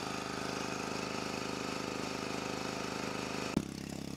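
Small portable generator engines running steadily under load, an even pulsing drone. About three and a half seconds in the sound changes suddenly with a short click and then runs on a little quieter.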